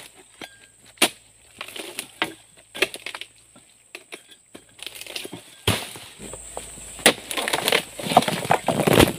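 Oil palm harvesting chisel (dodos) on a long pole, jabbed into the fibrous frond bases of an oil palm: sharp chopping and splitting strikes on wood. They come singly and irregularly at first, then crowd together near the end.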